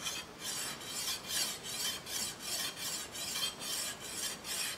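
Pocket sharpening stone rubbed quickly back and forth on the flat face of a steel machete blade, a dry rasping scrape at about three strokes a second. The stone is removing the wire edge that filing the spine left on the face.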